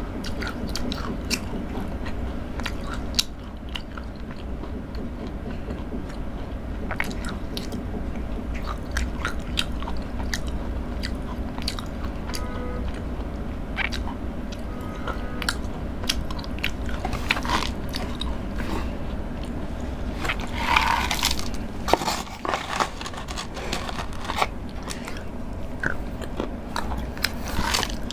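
Close-miked chewing and crunching of Cadbury Dairy Milk chocolate, with many small sharp clicks of biting and mouth sounds over a steady low hum. A denser burst of noise comes about twenty seconds in.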